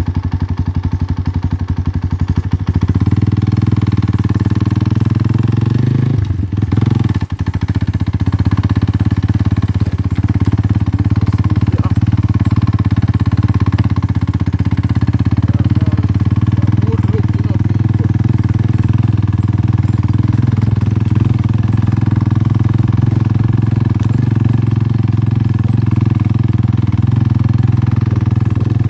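Motorcycle engine running steadily while being ridden; it gets louder about two and a half seconds in and dips briefly around six to seven seconds in.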